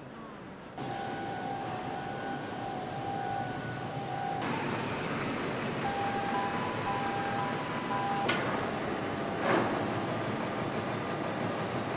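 Ship-to-shore container cranes at work: steady machinery noise with warning tones, first held, then beeping on and off, and a sharp clank near the end.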